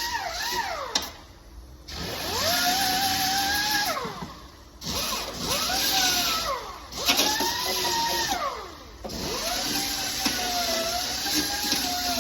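Power grinder grinding welds on steel bodywork flush, its motor whine rising and falling in pitch over a harsh hiss as it is worked, with a few short breaks where it eases off.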